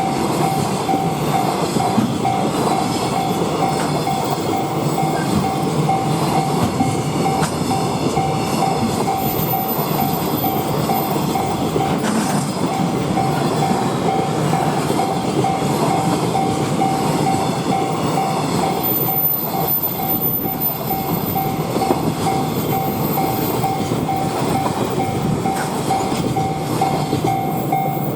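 A train running through a Japanese railway level crossing, its wheels rumbling and clacking on the rails. Over it, the crossing's warning alarm rings as one steady tone in quick, even pulses.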